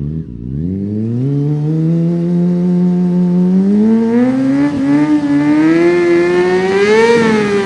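Kawasaki Ninja sport bike's engine revving up and held at high revs during a burnout. The pitch climbs quickly in the first second or two, then rises slowly and stays high, with a brief dip and swell about seven seconds in.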